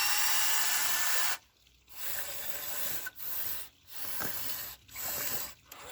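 Huina 1599 RC excavator's small electric motors and gearboxes whirring in stop-start bursts, falling silent for a moment between control movements about four times.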